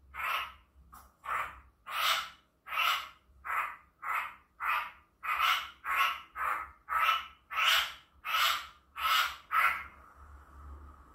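A poksay hongkong laughingthrush gives a long run of about fifteen harsh, loud calls, roughly one and a half a second. They stop near the end, leaving a faint steady hum.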